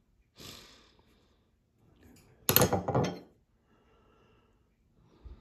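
Knives being handled and set down on a marble countertop: a soft rustle about half a second in, then a short cluster of hard knocks and clatter a little past the middle.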